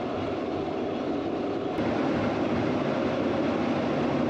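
Glacier Express train running along the track: a steady rumble of wheels on rails. It gets a little louder about two seconds in.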